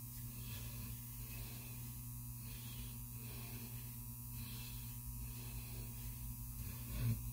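Steady electrical mains hum under the faint scrape of a Blackland Vector single-edge safety razor drawn in short strokes over lathered stubble on the chin and neck.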